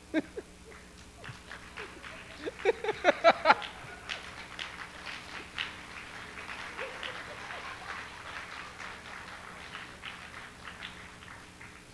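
Audience in a hall: a short burst of voices about three seconds in, then applause of many hands that runs for several seconds and dies away near the end.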